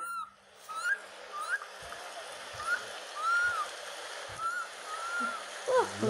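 Alexandrine parakeet whistling a series of short whistled notes, each rising then falling, about eight in five seconds, over a faint steady hiss.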